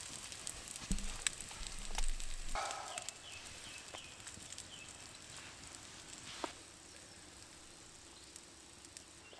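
Bacon sizzling in a pan over a campfire, with scattered crackles, louder in the first few seconds and then settling lower.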